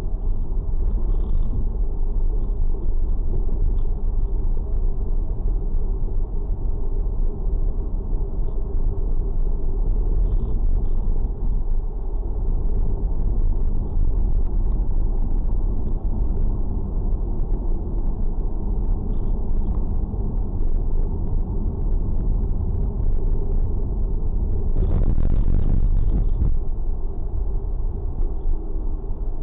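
Steady low rumble of motor-vehicle noise, with a faint steady hum in it and a brief louder swell about 25 seconds in.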